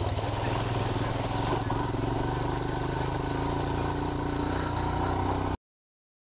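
Royal Enfield Himalayan single-cylinder motorcycle engine running at steady revs while riding through a muddy lane. It cuts off abruptly near the end, leaving silence.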